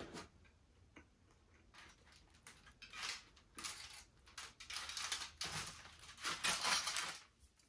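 Rustling and crinkling of aluminium foil and crackle of pizza crust as slices of cheese pizza are pulled apart and lifted from a foil-lined cardboard box, in a run of short bursts from about three seconds in. A couple of light clicks come in the first second.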